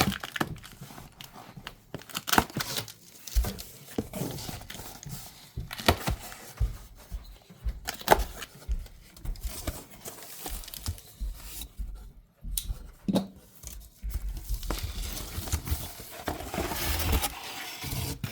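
Large cardboard shipping box being opened by hand: irregular tearing, rustling and crinkling of the box and its packing, with scattered knocks and bumps.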